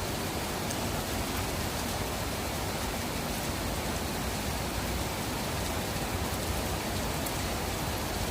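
Steady rain falling, an even hiss of rainfall with faint scattered drop ticks.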